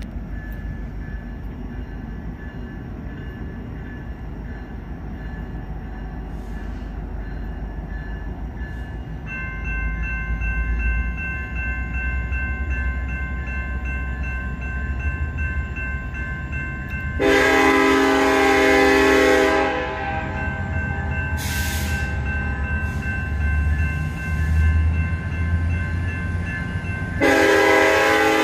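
Approaching diesel train with a low rumble, while the grade-crossing warning bell starts ringing about a third of the way in. The locomotive horn sounds two long blasts, one just past the halfway point and one near the end.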